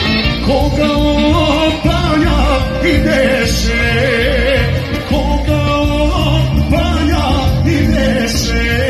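Live folk band played over loudspeakers: a male singer with accordion and band accompaniment, with the pitch of the voice wavering over a steady backing.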